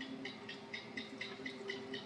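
Asian house gecko calling: a quick, even series of short chirps, about four a second.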